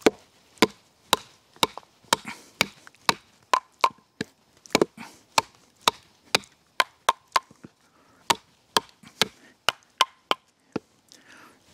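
Wooden baton striking the blade of a thin 2.5 mm carbon-steel bushcraft knife, the Beavercraft BSH3, driving it down through a length of hard seasoned maple to split it. Sharp wooden knocks come about two to three a second, with a short pause near the end.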